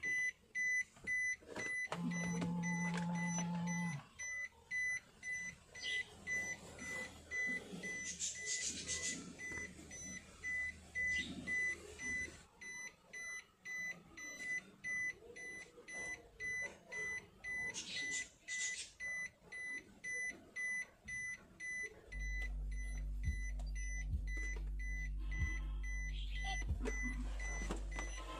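High electronic beep of one steady pitch, repeating about twice a second without a break. A low steady hum joins it about three quarters of the way through.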